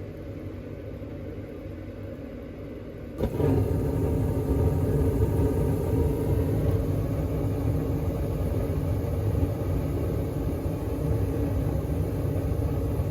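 Carrier gas furnace running with its newly replaced inducer fan motor: a steady mechanical hum with no bearing noise. About three seconds in it steps up suddenly and stays louder.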